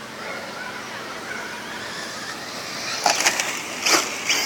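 Custom Kyosho Optima Mid 4WD electric RC buggy driving on grass: faint at first, then about three seconds in a run of loud, sharp bursts of high whirring and crackle as it speeds close by.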